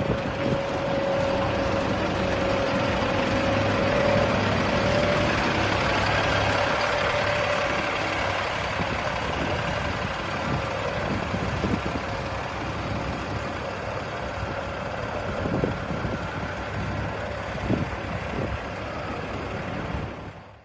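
Double-decker city bus's diesel engine running as it pulls away through street traffic, with a steady whine over the first few seconds. Two brief knocks near the end.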